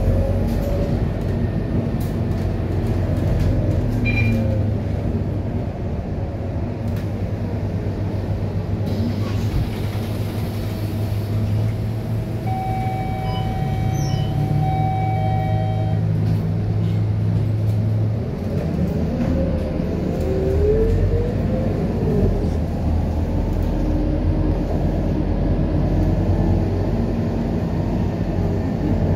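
Scania K230UB single-deck city bus running, heard from inside the cabin: a steady low engine drone. About halfway through, a few steady high tones sound together for about three seconds, and later the drone changes and a rising whine follows as the bus gathers speed.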